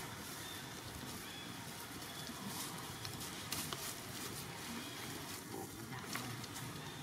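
Outdoor forest ambience: a steady hiss with scattered faint crackles and clicks, as of dry leaf litter being stirred.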